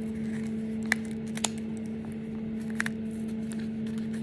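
Paper being handled and unfolded by hand: a small folded paper box opened, with a few short, sharp crackles and taps over a steady low hum.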